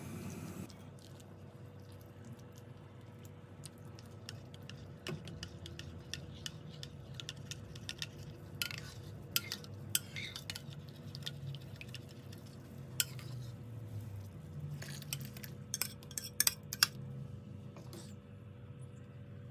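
Metal spoon and ladle clinking and scraping against a stainless steel pot and a ceramic plate as soup is stirred and ladled, in scattered sharp clinks that cluster in the middle and later part. A steady low hum runs underneath.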